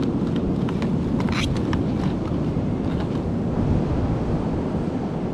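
Wind buffeting the microphone over the steady wash of ocean surf, with a few brief clicks about a second in.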